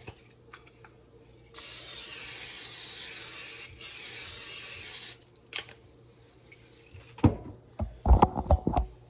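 Aerosol cooking spray hissing from the can onto a baking pan to grease it, in two bursts of about two seconds and a second and a half with a short break between. A few seconds later come several sharp knocks and clatters, the loudest sounds here.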